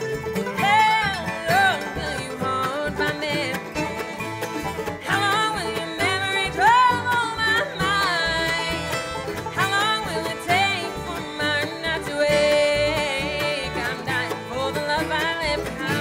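Live bluegrass band playing: banjo, mandolin, acoustic guitars, upright bass and fiddle, with a sliding melody line on top of a steady plucked rhythm.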